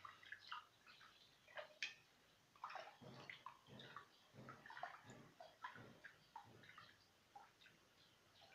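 Faint water sloshing, with many small irregular splashes.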